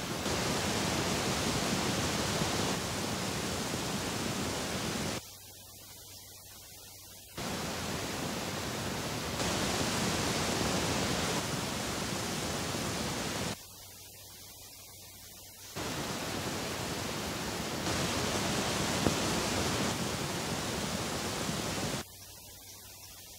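Pink-noise test signal stepping clockwise around the cinema's channels, left, center, right, surround, about two seconds on each, the tone shifting at every step. The surround step is much quieter and thinner. This is the Dolby Stereo rotation check that the channels are wired and assigned in the right order, the level meant to stay subjectively constant. One brief tick late on.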